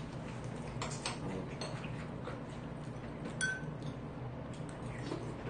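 Quiet eating sounds: chopsticks clicking against a ceramic soup bowl, with a couple of light clinks, one ringing briefly, over low room noise.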